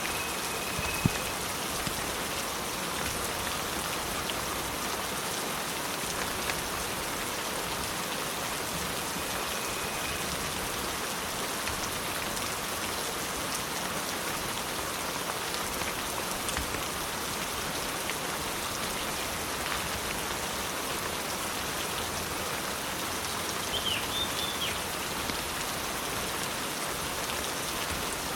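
Steady rain falling, an even hiss with occasional sharper drop ticks, one louder tick about a second in. A brief cluster of high chirps comes near the end.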